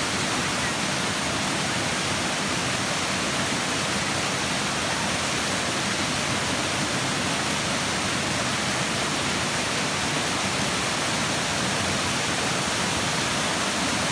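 Waterfall: falling water making a steady, even rush that never changes in level.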